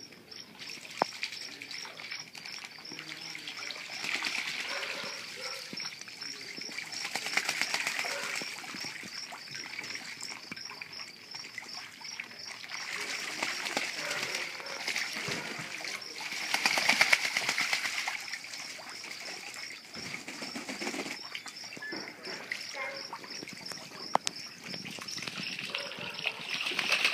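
Ducks splashing and bathing in a small pool, with water sloshing and bursts of wing-flapping; the splashing swells twice, about a quarter of the way in and again past halfway. A steady high chirping repeats about three times a second behind it.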